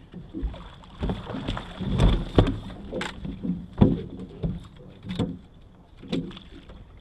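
Irregular knocks and thumps on a fishing boat's deck as anglers shift their feet and a long-handled landing net is grabbed, swung round and lowered, over a light steady hiss. The loudest knock comes about four seconds in.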